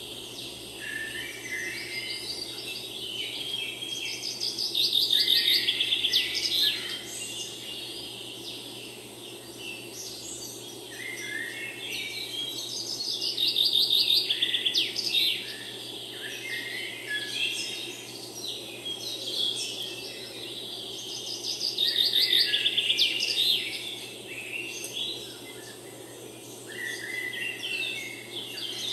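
Songbirds singing in woodland: many chirps and rapid trilled phrases, with louder bursts of song coming back about every eight seconds over a faint steady low hum.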